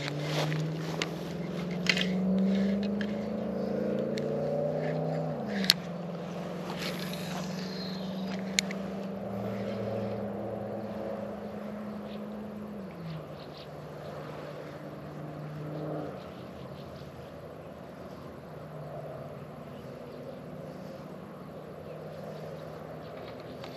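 A steady engine drone whose pitch drops twice, about five seconds in and again about thirteen seconds in, then fades to a lower hum. There are a few sharp clicks.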